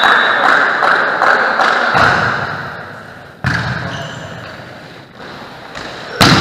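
A volleyball being struck during a rally in a large, echoing sports hall. Players' voices die away over the first two seconds. About three and a half seconds in there is a sharp slap of a hit, a softer hit comes a couple of seconds later, and a loud, sharp smack follows near the end.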